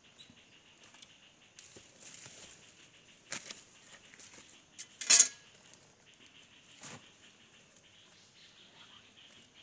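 Leafy branches rustling as they are carried and handled, in a few short brushing bursts, the loudest about five seconds in, over a faint steady high-pitched background.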